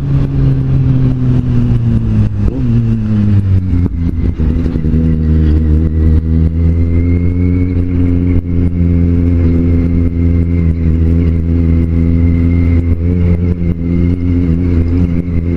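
Kawasaki Z750 inline-four motorcycle engine heard while riding. Its note falls over the first few seconds as the bike slows, then holds at a steady pitch.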